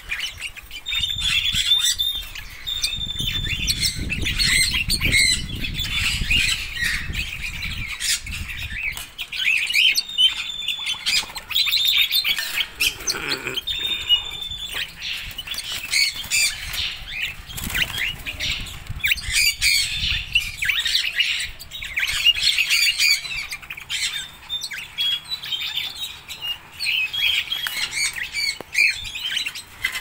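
Caged red-rumped parrots calling: a continuous run of sharp chirps and squawks mixed with short, clear whistles held on one pitch. A low rumble runs underneath for a few seconds near the start.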